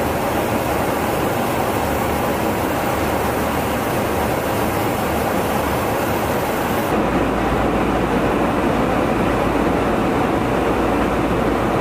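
Steady in-flight cabin noise inside a KC-135R Stratotanker's boom pod, a dense rush of airflow and jet engines. About seven seconds in it changes abruptly to a duller steady rumble with less hiss.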